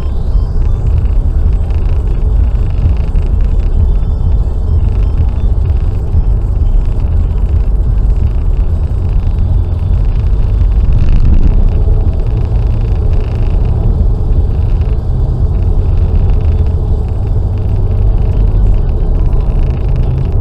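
Car driving at speed on a motorway: a steady low rumble of engine, tyres and wind.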